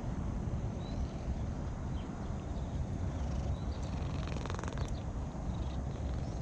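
Cat purring while being stroked, a steady low rumble, with a short buzzy rasp about four and a half seconds in.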